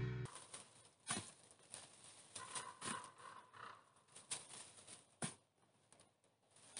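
Shovel digging into forest soil and leaf litter: irregular scrapes and crunches of the blade cutting the earth, with sharper knocks now and then.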